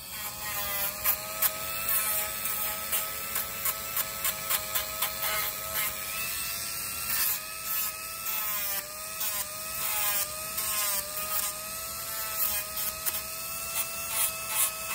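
Dremel rotary tool with a sanding drum running with a steady whine whose pitch wavers slightly under load, grinding down a dog's toenail in repeated brief gritty contacts.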